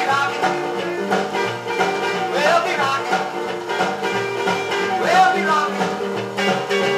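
Instrumental break of a 1950s rockabilly song playing from a Decca 78 rpm record on a turntable. Its lead line slides up in pitch twice over a steady band backing.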